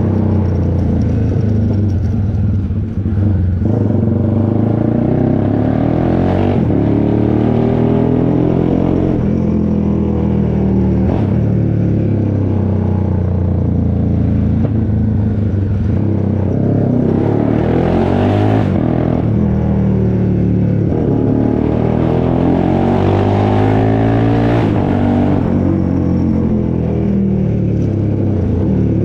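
Honda CBX 250 Twister single-cylinder four-stroke engine, bored out to a 79 mm piston, running loud through a tuned exhaust. The revs rise and fall about four times, with a deep steady rumble in between.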